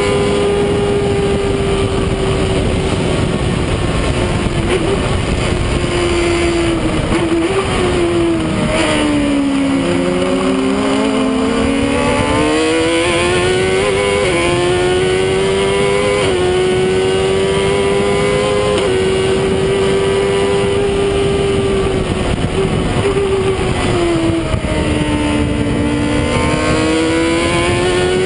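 Stohr WF-1 sports racer's engine heard from the open cockpit at racing speed. It is held at high revs, then drops sharply with downshifts about a third of the way in and climbs back up through the gears in steps. It dips and rises once more near the end, over steady rushing noise.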